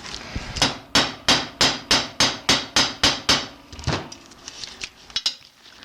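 Hammer striking a grommet setting tool to clinch a grommet into tarp: about ten quick, even blows, roughly three a second, then a few lighter taps near the end.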